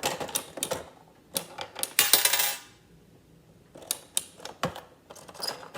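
Clicks and knocks of a small hand-built coin-operated capsule vending machine as its handle is turned and a coin drops through the mechanism. There is a louder rattling burst about two seconds in.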